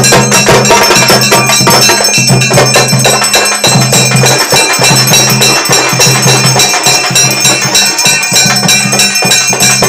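Loud festival percussion with ringing bells: rapid, dense drumbeats and clanging metal over high, sustained bell tones, and a low droning note that keeps cutting out and starting again.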